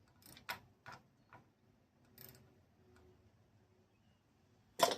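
A hand tool tightening the screw inside a small mower engine's air filter box: a few light clicks and ticks, then one sharper click near the end.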